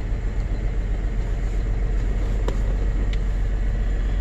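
2005 GMC Envoy's 4.2-litre inline-six idling rough with a steady low rumble: cylinder number 3 is misfiring.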